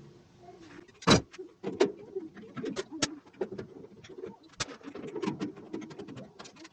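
Sped-up sound of hand-tool work on a washing machine's back panel: a rapid run of sharp clicks and clatter from the tools and screws, the loudest about a second in, over a low warbling sound.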